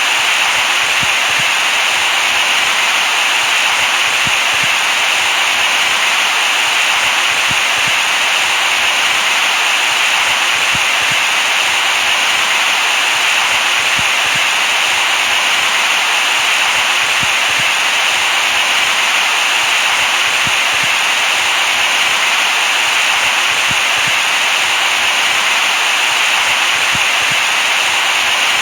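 Steady white noise: an even, unbroken hiss, brightest in the upper middle with little bass, never changing in level.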